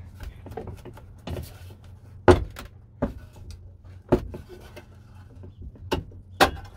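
Irregular sharp metal knocks and clunks, about eight of them with the loudest about two seconds in, as the upright column cover of an old bathroom scale is twisted and pulled loose from the mechanism and base.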